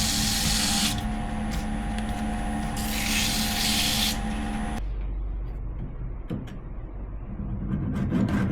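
Two bursts of spraying hiss over a steady machine hum. The hum stops suddenly about halfway through, leaving a few clicks, and rhythmic wood-rubbing strokes begin near the end.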